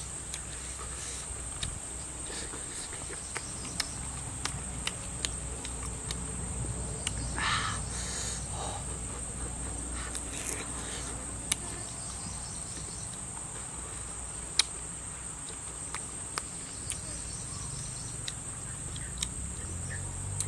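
Steady high-pitched insect drone, with scattered sharp clicks and a few short crunchy noises of a person chewing grilled frog.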